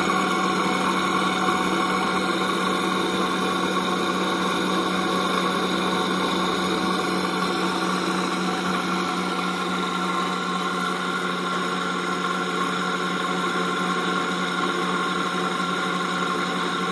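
Rotating anode X-ray tube spinning up its anode disc: the stator coils and rotor keep up a steady hum with a higher whine over it, plus the whir of the spinning rotor.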